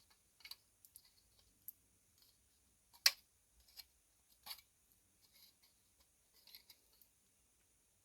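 Scattered small snips and clicks of a hobby tool trimming flash off a plastic model-kit part, one sharp snip about three seconds in louder than the rest; they stop near the end.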